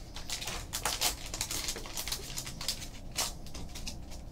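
Foil trading-card pack wrapper crinkling as it is pulled open, with cards slid out and handled: a scatter of short rustles and light clicks.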